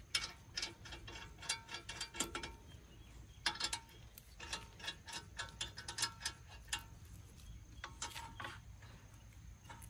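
Lug nuts being spun onto the wheel studs by hand: faint, irregular metal clicks and ticks, several a second, with short pauses.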